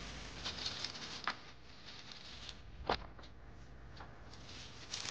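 Light scattered taps and rustling from footsteps in slide sandals and a plastic carrier bag being carried, with one sharper click near the middle.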